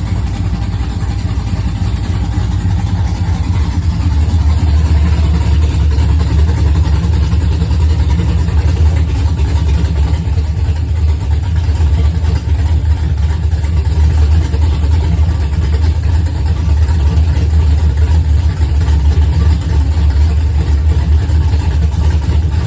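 Car engine running steadily at idle on its first start, a little louder from about four seconds in. The owner says it has a vacuum leak.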